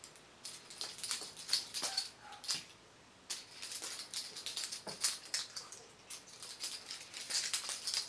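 Small metal carrying chain and ring on a titanium pen jingling and clinking in quick runs of rattles as the pen is swung about, with a short pause about three seconds in.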